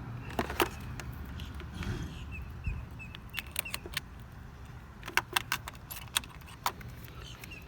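Scattered small clicks and light rattling as a fuse voltage tester is handled and clipped onto fuses in a car fuse box, over a low steady hum.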